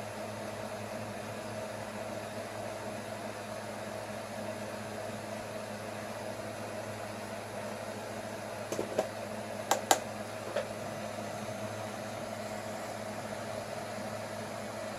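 Steady low electrical hum of room noise, with a few light clicks and taps clustered about nine to ten seconds in.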